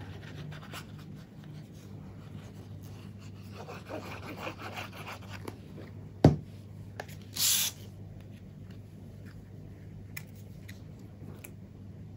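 Quiet handling of cardstock and a liquid glue bottle on a cutting mat: faint rubbing and scraping, a sharp tap about six seconds in, and a short rustle a second later.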